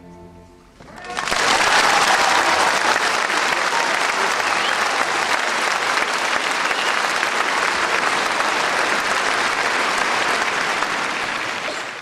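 The orchestra's last note dies away, and about a second in an audience breaks into applause. The clapping is loud and steady and fades only at the very end.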